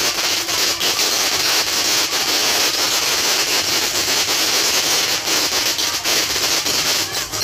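Fireworks crackling and hissing: a dense, steady hiss full of small rapid pops.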